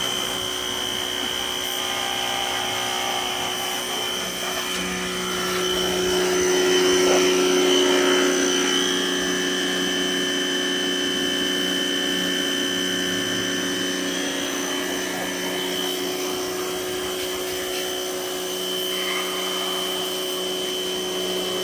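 Electric power tool running steadily with a high whine, sanding the metal tip of a motorcycle muffler. It grows louder for a few seconds around the middle, as the tool is worked against the metal.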